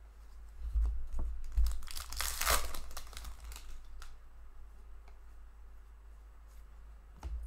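Trading cards being shuffled and slid past one another in the hands: light flicks and taps, with a louder papery rustle about two to three seconds in.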